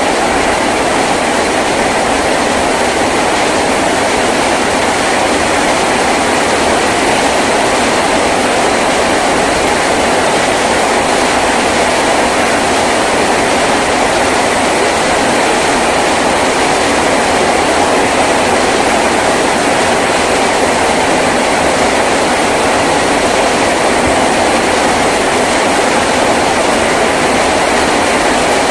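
Heavy rain drumming steadily on a tin roof, a loud, dense, unbroken wash of sound.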